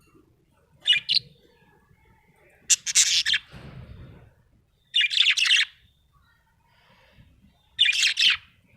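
Budgerigar chirping in four short, high-pitched bursts about two seconds apart.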